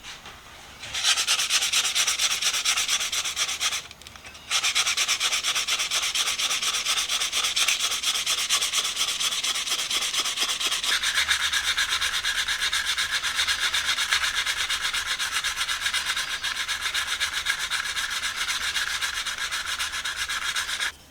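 Sandpaper scraping steadily on a small wooden screwdriver handle. It starts about a second in, stops briefly about four seconds in, then resumes and goes on, a little lower in pitch from about halfway through.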